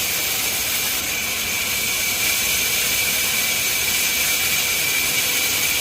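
Sawmill saw (aara machine) running steadily with a continuous high hiss and a steady whine.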